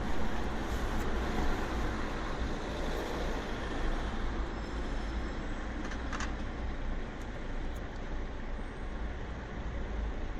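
Light city traffic at an intersection: a steady mix of car engines and tyre noise, with a short sharp clack about six seconds in.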